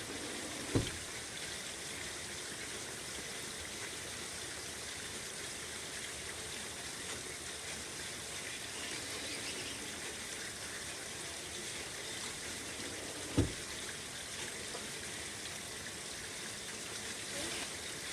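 Steady rain falling as an even hiss of drops. Two dull thumps of a screen door cut through it, one right near the start and one about thirteen seconds in.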